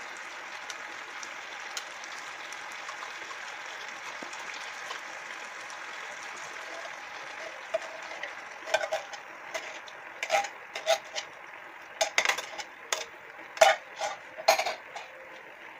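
Food frying in a pan with a steady hiss; from about halfway on, a run of sharp metal clinks and knocks as an upturned tin can and utensils strike the frying pan.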